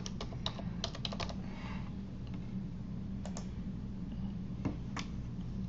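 Computer keyboard typing: a quick run of keystrokes entering a six-digit two-factor authentication code, then a few single clicks, over a steady low hum.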